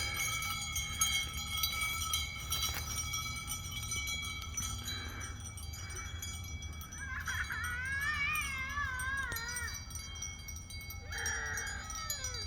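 Blackbelly Katahdin hair sheep bleating twice: a long wavering bleat about seven seconds in and a shorter falling one near the end, over a steady high ringing like wind chimes.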